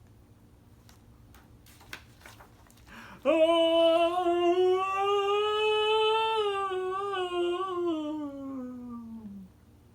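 A man's voice holds one long drawn-out note for about six seconds, wavering a little and sliding down in pitch near the end, with a few soft clicks just before it.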